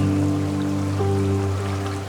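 Background music: slow, sustained chords, with a change of note about a second in.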